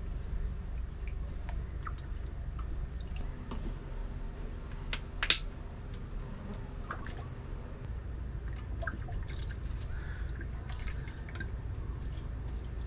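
Citrus juice dripping and splashing into a container while being added to raw fish for nummus, with scattered light clicks and a sharper knock about five seconds in, over a steady low hum.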